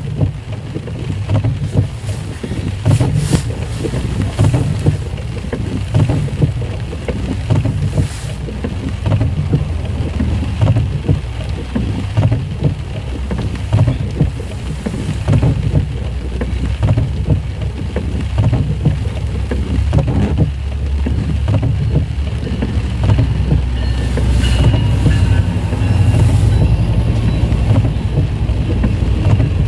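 Steady low rumble of rain and wind on a parked car, heard from inside; it grows louder over the last few seconds as a passenger train comes up and rolls past close by.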